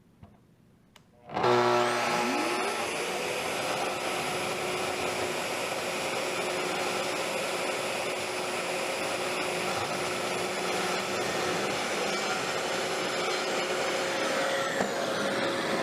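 Festool TS75 plunge track saw and CT36 dust extractor starting up together about a second and a half in, the saw motor's whine rising as it spins up, then both running steadily through a cut in wood.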